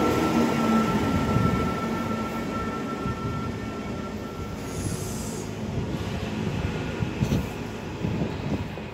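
NS SGMm Sprinter electric multiple unit slowing to a stop at the platform, its running noise dying away. A steady high squeal fades out over the first few seconds, and a brief hiss comes about five seconds in.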